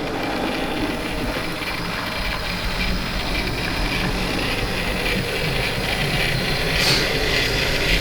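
OO gauge model train running along the track: a DCC-fitted Bachmann GWR 64xx pannier tank's motor running with its wheels and the autocoach's metal wheels rolling on the rails, slowly growing a little louder.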